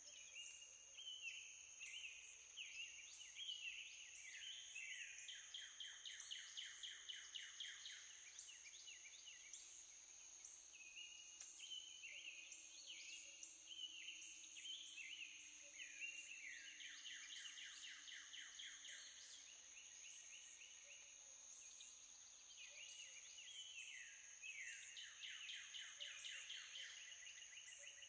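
Faint birdsong: bouts of rapid chirps, each series sliding downward in pitch, repeated over and over, with a steady high-pitched hum underneath.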